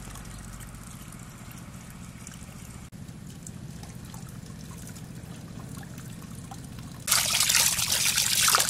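A faint, steady low background, then about seven seconds in a stream of running water starts splashing loudly into a steel bowl as hands rub and rinse squid in it.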